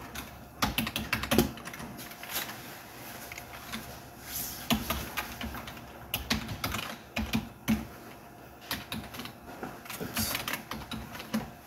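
Typing on a computer keyboard: irregular runs of clicking keystrokes with short pauses between them.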